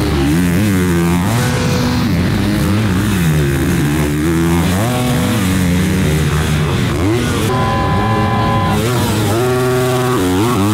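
Motocross bike engines racing on a dirt track: the revs climb and drop again and again through gear changes and over the jumps, with a longer held high rev near the end.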